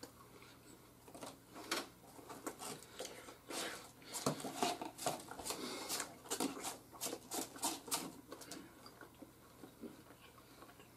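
Crunching and chewing of hard, dry oven-baked pizza rolls, with scattered short clicks and scrapes of forks on plates.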